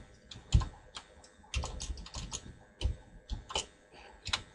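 Typing on a computer keyboard: irregular keystrokes, some in quick clusters, with short pauses between them.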